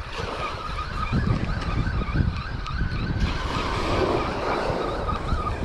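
Spinning reel being cranked steadily, a rhythmic whir as the line is wound in with a fish on. Wind buffets the microphone, and a wave washes up the sand with a hiss a little past the middle.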